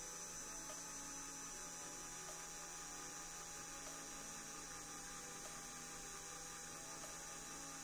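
Power drill running steadily at low speed, drilling a pilot hole into the rivet post of a diecast toy car's base: a faint, even hum.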